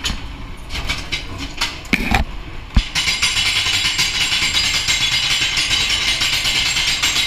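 Ghost train car clattering and knocking as it rolls through the ride's doors, with two sharp thumps about two and three seconds in. A steady loud hiss then starts suddenly and carries on.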